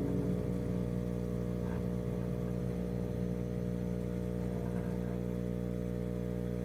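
A steady, unchanging hum made of several even tones, from a running machine.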